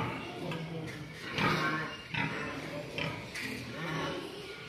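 Pigs grunting in short, repeated grunts during mating, one every second or so. The loudest come at the very start and about a second and a half in.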